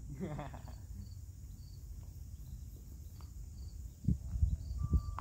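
Insects chirping faintly over a steady low rumble, with a brief voice at the start. About four seconds in come a few low thumps, and near the end a chime starts ringing with several steady tones.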